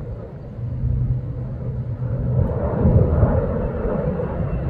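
Fighter jet's engine rumbling overhead at a distance as it flies in with its landing gear down, growing louder about two seconds in.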